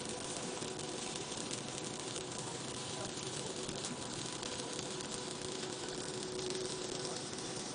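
Stick-welding (SMAW) arc crackling and sizzling steadily as an electrode burns, with a faint steady hum underneath.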